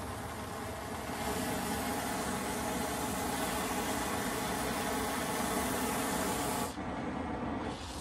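Oxy-fuel brazing torch flame burning with a steady hiss. It grows louder about a second in, and its high hiss drops away sharply near the end.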